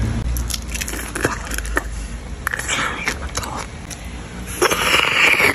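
Close-up eating sounds of grilled balut: scattered crackly clicks as fingers pick at the shell and the kimchi-cheese topping, then a hissy slurp at the opening of the duck egg near the end.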